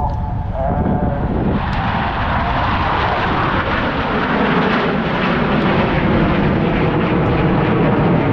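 Jet roar of a Blue Angels F/A-18 flying past. The roar swells about a second and a half in and stays loud, with a pitch that sweeps as the jet passes.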